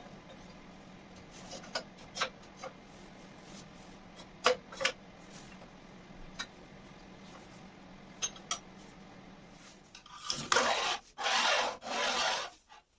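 Scattered light clicks and taps of band-saw parts being handled during assembly, then two rubbing scrapes of about a second each near the end, the loudest sounds.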